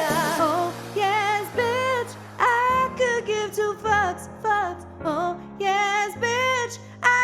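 A woman sings drawn-out, wavering vocal runs with heavy vibrato over sparse, sustained backing chords, ending a song.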